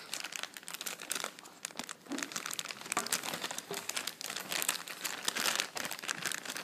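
Thin clear plastic toy bag crinkling and crackling irregularly as fingers twist and pull it open.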